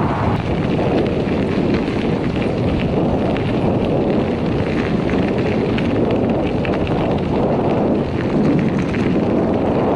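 Wind buffeting the microphone of a camera on a moving bicycle, a loud, rough, steady rumble, with faint crackle from the tyres rolling over the gravel trail.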